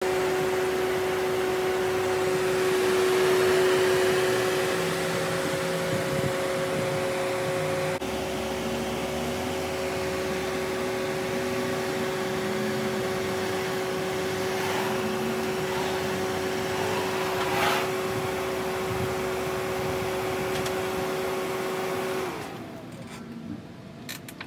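A motor running steadily with a whining hum. Its pitch sags as it winds down and stops about two seconds before the end.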